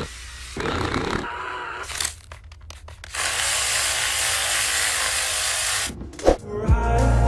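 Scraping and tearing noises: a short rasp, a few clicks, then a steady rasp lasting about three seconds. Music starts near the end.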